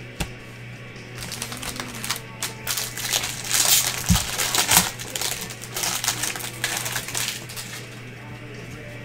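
Stack of baseball trading cards handled by gloved hands, flipped through and squared up: a run of quick, crisp clicks and rustles, with a few dull knocks, one right at the start and two around the middle.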